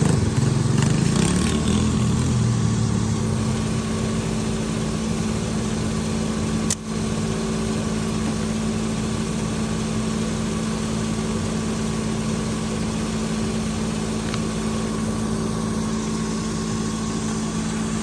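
Pickup truck engine idling steadily, an even hum, with a single sharp click about seven seconds in.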